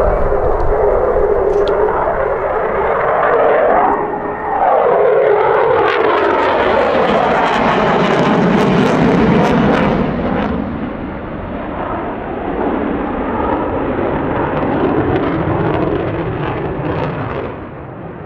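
F-15 fighter's twin jet engines roaring through a display pass. The pitch sweeps as the jet goes by: loudest in the middle of the pass, then easing off as it pulls away.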